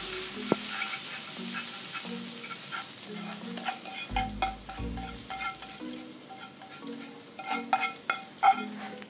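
Shredded onion and cabbage sizzling in a frying pan while being stirred with chopsticks; the sizzle fades after the first few seconds. From about halfway in come a series of sharp clicks of chopsticks against the pan and plate.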